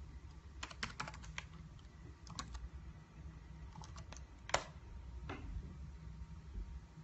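Laptop keyboard keys being typed on: a quick run of keystrokes, then a few scattered single presses, the loudest one about four and a half seconds in.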